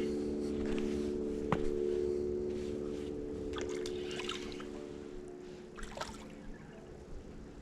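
A boat motor runs at a steady pitch and slowly fades away, with a few faint clicks and small splashes.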